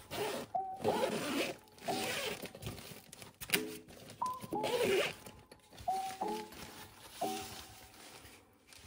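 Several rasping, rustling bursts of unboxing handling, like a zipper being drawn or packaging being torn and crinkled. They come strongest at the start and again about five seconds in, over soft background music.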